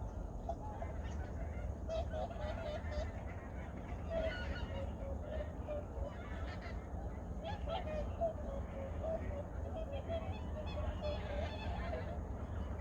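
A large flock of wild geese calling: many short honks overlapping in a continuous chatter, over a steady low rumble.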